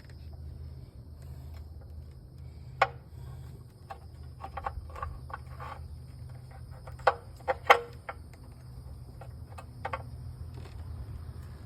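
Hand tools clicking and tapping on engine parts during camshaft end cap seal work: scattered sharp clicks, the loudest about three seconds in and a quick run of three near eight seconds, over a steady low hum.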